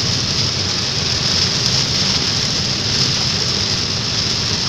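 Heavy rain pelting a moving car's roof and windshield, heard from inside the cabin as a steady hiss, with the car's low road rumble underneath.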